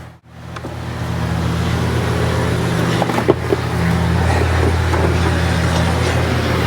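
Steady low mechanical hum of shop machinery, with a few light clicks about three seconds in. The sound drops out for a moment just after the start.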